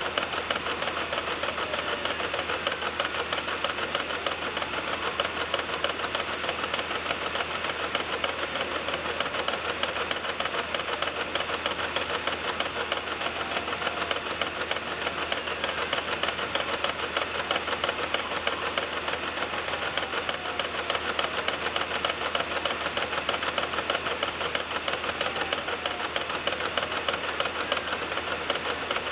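Computer DVD drive clicking rapidly and continuously as its read head seeks across a burned DVD while loading program files, with the disc spinning and a faint rising and falling whine.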